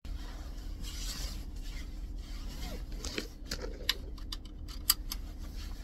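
Rustling of a padded jacket and a run of sharp clicks as a seatbelt is pulled across and buckled, over a steady low hum in a van cab.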